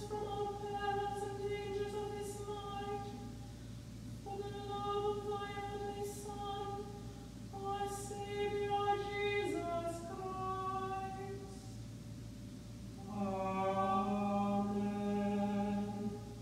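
Unaccompanied liturgical chant sung by cantors: a higher voice sings a line of long held notes with short breaths between phrases, and a second, lower voice comes in about thirteen seconds in.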